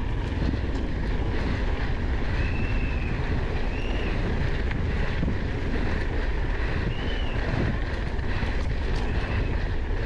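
Wind buffeting the microphone of a downhill mountain bike ridden at speed, a steady low rushing noise, with a few short, faint high-pitched squeaks.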